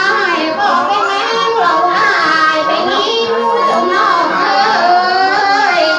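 A woman singing into a handheld microphone, in long wavering held notes that glide up and down.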